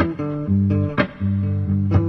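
Electric guitar playing a slow instrumental passage of held notes and chords, each new one starting with a sharp attack about once a second.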